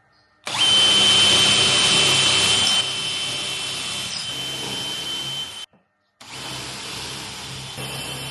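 Power drill boring holes in the timber for threaded inserts, with a steady high whine: one long run that eases off partway, a short stop, then it starts again.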